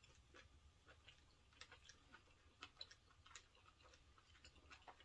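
Faint, irregular small clicks and mouth noises of someone chewing a mouthful of pho, close to the microphone.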